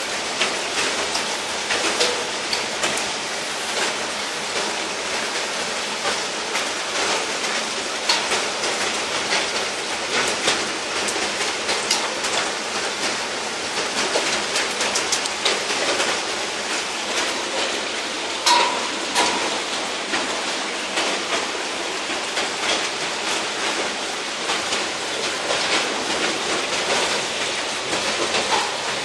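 Steady hiss of a heavy rain-and-hail downpour, with frequent sharp ticks of drops and stones striking hard surfaces.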